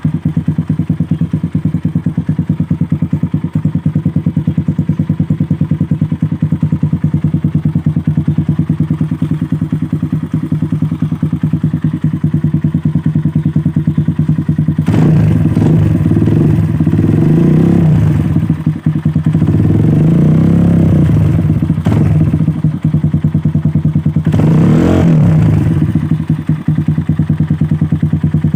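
Kawasaki KLX 150's single-cylinder four-stroke engine running through a Yoshimura full carbon muffler. It idles steadily just after starting, then is revved in short throttle blips several times in the second half, each rising and falling in pitch.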